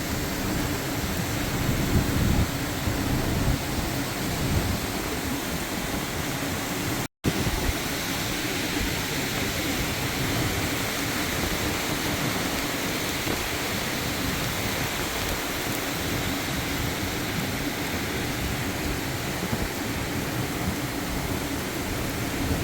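Heavy rain and gusting wind from a hurricane rain band: a steady hiss with a fluttering low rumble underneath. The sound cuts out for an instant about seven seconds in.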